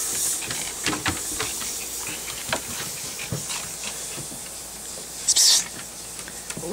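Chorkie dog making breathy huffs and snuffles, with one louder hissing breath about five seconds in and scattered light clicks.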